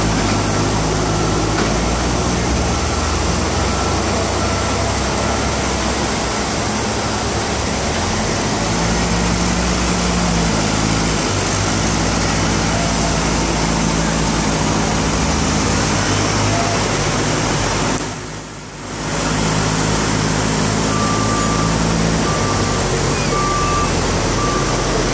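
Steady, loud outdoor rush of street traffic and engine hum below a high-rise, with low engine notes rising and falling. A short beep repeats about once a second near the start and again in the last few seconds. The sound drops away suddenly for about a second, a little past the middle.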